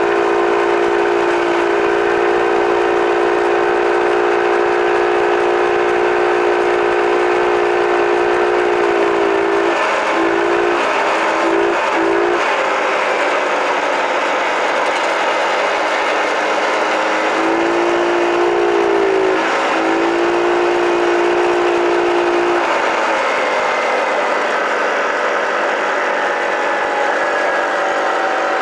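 Small engine of a mini bike running under way with a steady high-pitched whine. The whine wavers briefly about a third of the way in and again past halfway as the throttle changes, then drops away to a lower, rougher note for the last few seconds.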